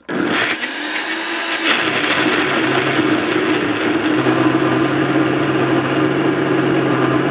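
Countertop blender motor starting up again right after a brief stop and running, chopping frozen mango cubes in yogurt. Its pitch rises over the first second or two as it comes up to speed, then it runs steadily.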